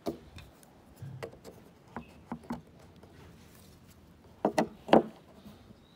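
Surfboards being handled: scattered light knocks and taps, with a louder run of three knocks near the end.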